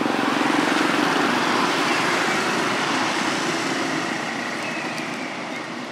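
A motor engine passing by, loudest in the first couple of seconds and fading away toward the end.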